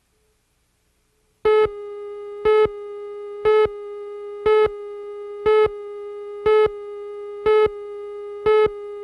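Electronic tone from a broadcast tape's leader: a steady hum-like tone starts about a second and a half in, with a louder, harsher beep once every second, like a countdown.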